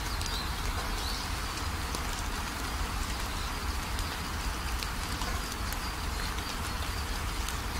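A steady, even hiss, with a few faint high chirps near the start and scattered light ticks.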